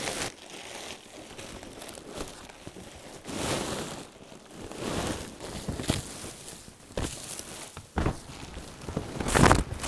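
Plastic wrapping crinkling and rustling in uneven bursts as a rolled pocketed-coil spring unit is unrolled by hand, with a sharp knock about eight seconds in and the loudest rustle near the end.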